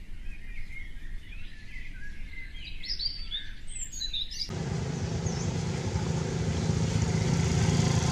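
Small birds chirping and calling. About halfway through, this cuts off suddenly and is replaced by steady outdoor noise with a low engine hum that grows louder.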